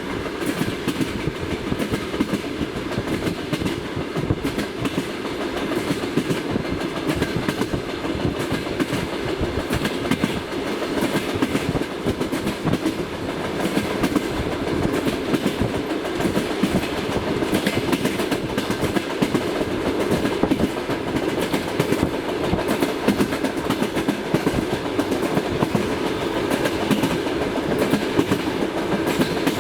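Passenger train carriage wheels clattering steadily over the rails in a clickety-clack, with the knock of wheel flats (skid-worn flat spots on the wheel treads) among the beats.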